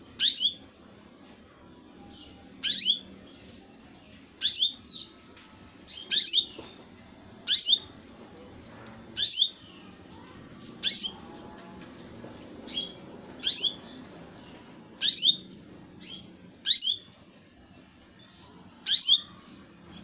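Young domestic canary giving sharp, repeated call notes, each a quick falling chirp, about one every one and a half to two seconds.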